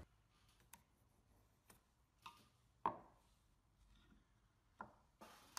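Faint, scattered light taps and knocks of a spray can and pencil being handled on a wooden workbench, with one louder knock about three seconds in and a brief scratch near the end.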